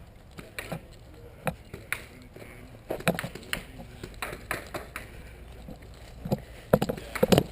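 Airsoft guns firing scattered single shots: sharp clicks at irregular intervals, coming more often near the end.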